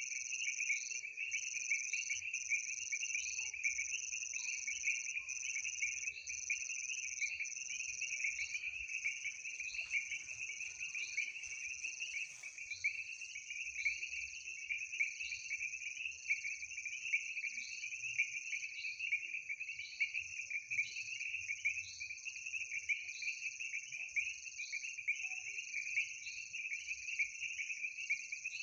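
Night chorus of calling frogs and insects: a steady, high buzzing trill, overlaid by a shriller call that pulses about once a second.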